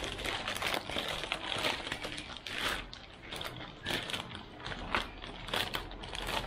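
Handling noise: irregular crinkling and rustling with scattered small crackles and scrapes, as parts and packaging are handled.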